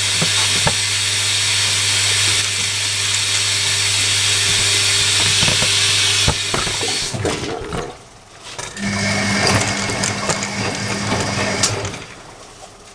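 Hoover Electronic A3172 washing machine running with a steady motor hum and whine. The whine cuts off about six seconds in, then a shorter steady hum runs for about three seconds before it goes quiet.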